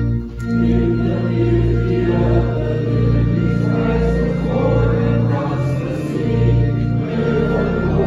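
Congregation singing a hymn together with a pipe or electronic organ accompanying in held chords. After a brief break the organ and voices start a new verse about half a second in.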